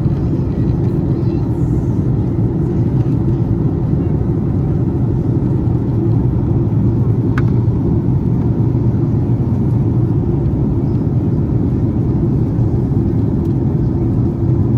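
Steady low cabin rumble of an Airbus A330-200 with Pratt & Whitney PW4000 engines, heard from inside the passenger cabin, with one brief click about halfway through.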